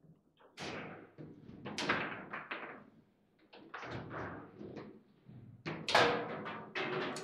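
Table football in play: a rapid string of sharp clacks and thuds as the ball and the player figures on the rods strike, with the hardest hits about 2 seconds and 6 seconds in.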